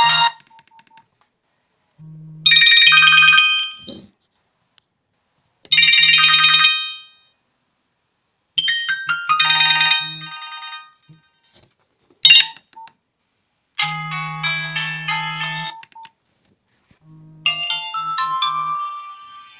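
A Nokia keypad phone's built-in ringtones or alarm tones being previewed one after another through its speaker: about six short electronic melodies, each cut off after a second or two as the next entry is selected. A low buzz pulses along with most of the tones, and a few short clicks fall in the gaps.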